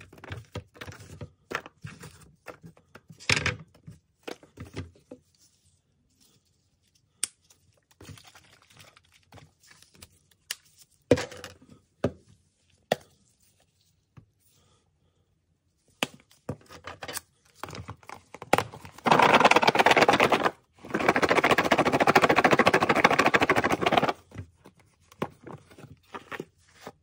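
Peeled apple slices handled and dropped into a plastic food container, with scattered thunks and clicks. Past the middle come two stretches of rapid shaking, about two and three seconds long, the loudest sounds here.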